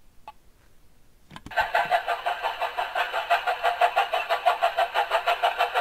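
Toy train making a fast, even chugging sound of about six or seven beats a second, which starts about one and a half seconds in.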